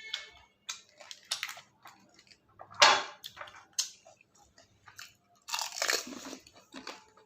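Close-miked eating of golgappa (pani puri): crisp puri shells crunching as they are bitten and chewed, in irregular bursts, loudest about three seconds in and with a longer crunch around six seconds.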